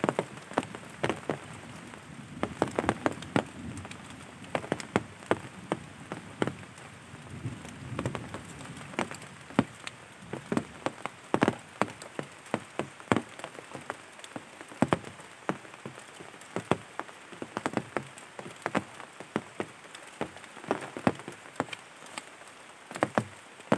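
Scattered drops hitting a surface, sounding like rain: irregular sharp taps, several a second, over a faint steady hiss.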